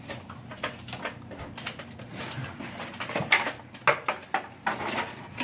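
Handling noise of mounting brackets and hardware being rummaged through: irregular clicks, clinks and rustles, busier in the second half, with two sharp knocks a little past halfway.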